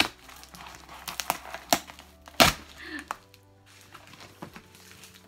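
Large cardboard box being pulled and torn open by hand: a string of sharp knocks and cracks from the cardboard flaps, the loudest about two and a half seconds in, over quiet background music.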